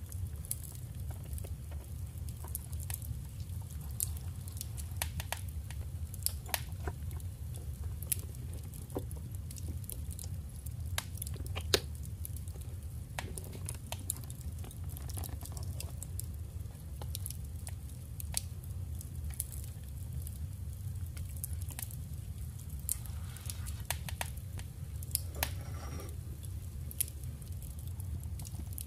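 Paper and scrapbooking materials handled on a desk: irregular light clicks and taps, with soft rustles of paper in the middle and again later on, over a steady low hum.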